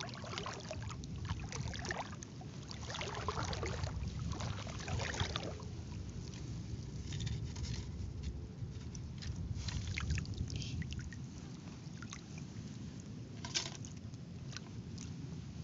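Shallow water sloshing and splashing in irregular bursts over a steady low rumble, as of someone wading and working in a stream.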